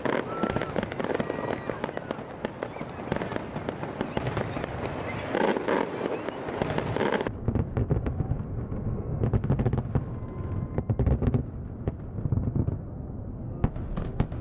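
Aerial fireworks show: shells bursting one after another in dense crackling and banging. About halfway through the sound turns duller, with deep booms standing out.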